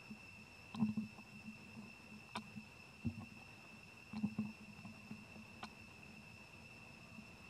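A steady, high-pitched insect drone on a single tone, with a few short rustles and clicks scattered through it, the loudest about a second in and again around four seconds in.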